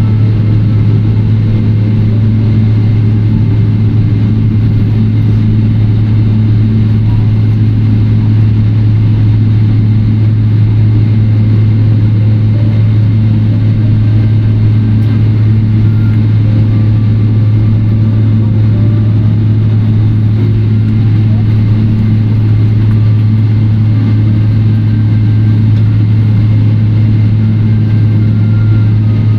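Steady, loud cabin noise inside a Boeing 777-300ER taxiing in: a constant low hum from the idling GE90 engines and cabin air system, with no change in pitch or level.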